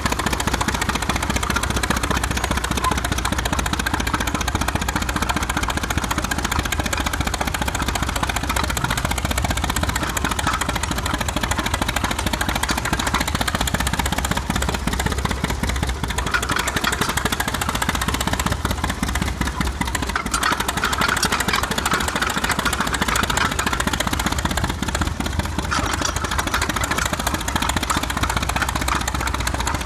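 Engine of a 1919 Blackstone crawler tractor running steadily with a rapid, even exhaust beat while the crawler is driven on its tracks.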